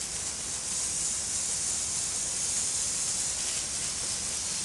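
Water spraying from a nozzle onto a concrete floor, a steady hiss, rinsing off the gasoline emulsion left by the spill treatment.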